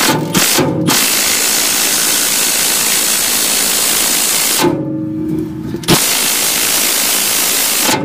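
Milwaukee Fuel cordless impact wrench hammering at a rusted toolbox bolt in long, steady runs. It stops briefly about five seconds in, with a short motor whir, then starts hammering again. The bolt does not come loose.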